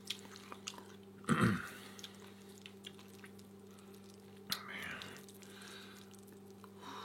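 Quiet eating of black bean noodles (jjajangmyeon): a few soft utensil and mouth clicks and wet chewing noises, with a short voiced sound falling in pitch about a second in. A steady low electrical hum lies under it.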